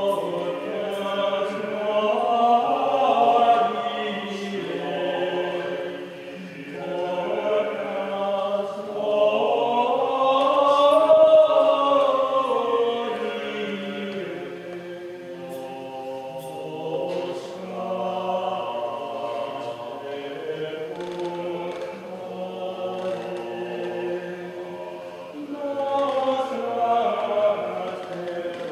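Church choir singing sacred vocal music in several parts, slow held notes that swell to their loudest about eleven seconds in.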